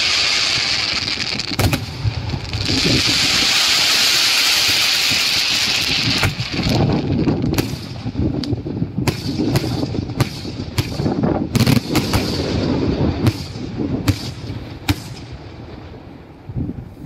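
Daytime aerial fireworks: a dense hiss for the first six seconds or so, broken by a couple of bangs, then a run of sharp bangs from shells bursting overhead, about one every half second to second, thinning out and getting quieter near the end.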